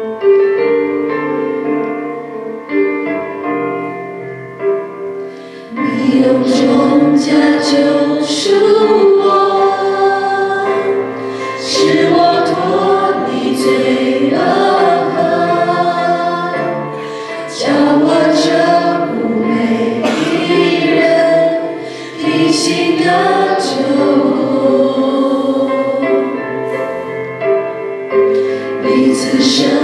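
Small mixed group of women's and a man's voices singing a Mandarin hymn together through microphones. The singing is softer for the first few seconds and grows fuller and louder about six seconds in.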